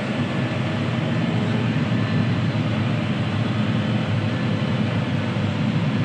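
A John Deere 6R tractor running, with a steady engine drone.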